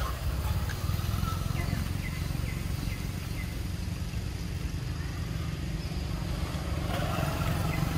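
Steady low rumble with faint, short falling chirps repeating about every half second.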